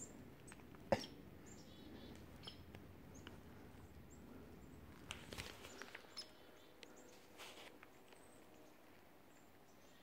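Faint, scattered high chirps of small forest songbirds over quiet woodland ambience. A sharp click about a second in, and some rustling and handling noise from the moving phone in the first half.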